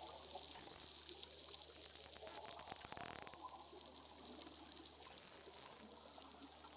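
Outdoor nature ambience: a steady high hiss with a short, high rising chirp repeated about every two seconds.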